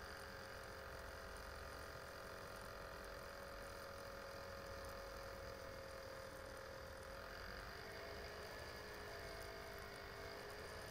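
Faint steady background hum and hiss with a few faint held tones that shift slightly in pitch about seven seconds in; no distinct sound events.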